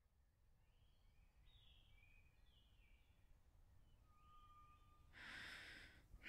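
Faint woodland ambience with a few small birds chirping, then a long breathy sigh about five seconds in.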